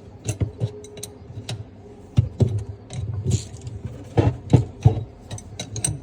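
Adjustable wrench clinking and knocking on a faucet supply-line fitting while tightening it under the sink: a string of irregular metal clicks, with a few louder knocks past the middle.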